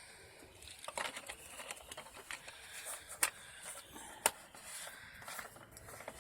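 Small handling noises around the washing machine and the detergent bottle: scattered soft taps and crackles, with two sharp clicks about a second apart a little past the middle.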